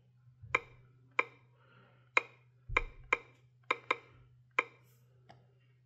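Sharp key-tap clicks, about eight at uneven spacing, from typing on the Qolsys IQ Panel 4 alarm panel's touchscreen keyboard, over a low steady hum.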